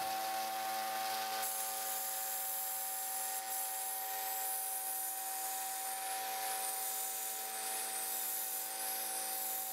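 A 1-inch belt sander running with a steady motor hum while a piece of model rail is held to the belt and ground, a steady grinding hiss that grows brighter about a second and a half in. The rail is being beveled to form a turnout frog point.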